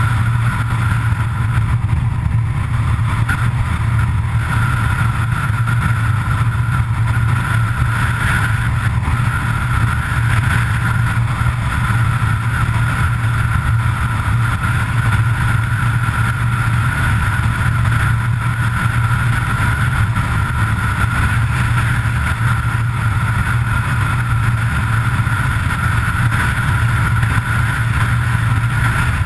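Car driving steadily at full speed on an asphalt road: a constant low drone of engine and road noise, unchanging throughout.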